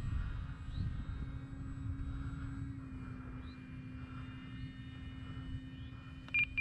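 Electric motor and propeller of a large foam RC Cessna 182 flying overhead, a steady drone over a low rumble. Near the end, short high beeps start: the radio transmitter's trim tones as the plane is trimmed.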